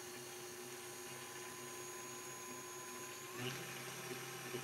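Stand mixer running steadily and faintly as it whips egg-and-sugar cake batter, its tone shifting slightly about three and a half seconds in.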